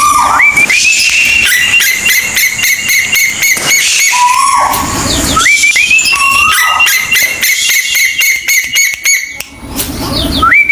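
Kolik tuwu bird calling: a whistled note held low, then stepping up to a higher held note, given three times, with dense rapid clicking throughout.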